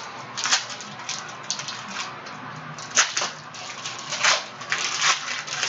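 Panini Prizm basketball trading cards and their packaging being handled: a series of papery swishes and rustles as cards slide against each other, with a sharp snap about three seconds in.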